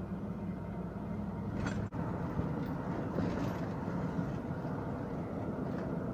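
Steady engine and road noise inside the cab of a 1997 Dodge Ram 4x4 pickup as it is driven along, with a very brief dropout about two seconds in.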